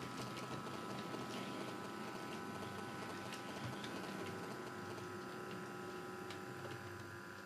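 Model goods train rolling along the track: the wagons' wheels click irregularly over the rail joints, over a steady electric hum.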